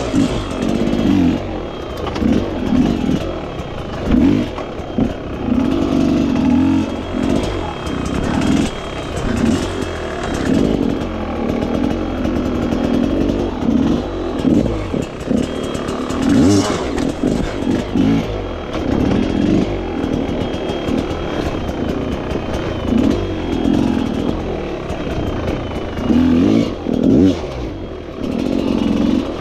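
Dirt bike engine revving up and down over and over, the throttle opening and closing every second or so as the bike is ridden hard.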